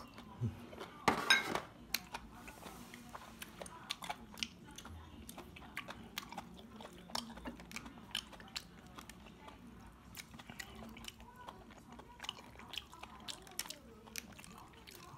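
Eating sounds: chewing, with frequent light clicks of chopsticks against plates and bowls, and a louder clatter about a second in.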